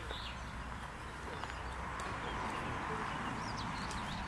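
Outdoor ambience: small birds chirping now and then in the trees, over a steady low rumble and faint distant voices.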